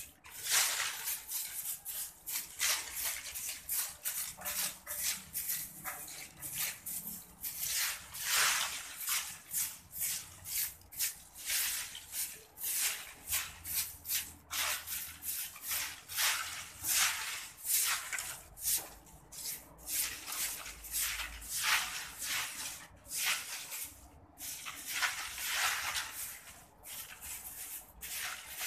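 Repeated brushing and scraping strokes over a concrete floor, about two a second with a few short pauses, as fallen leaves and seeds are swept up.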